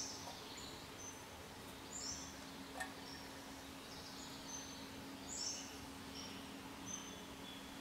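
Birds chirping in short high calls repeated every second or so, over a faint steady hiss and hum, with one light tap about three seconds in.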